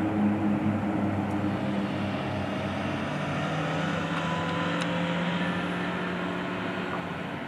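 Propeller drone of a formation of Pilatus PC-7 turboprop trainers in flight, a steady hum of several tones that shift slightly in pitch and slowly fade.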